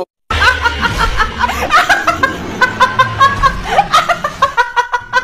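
Cartoon character laughing: a fast, even run of short snickering syllables that starts a moment in and keeps going.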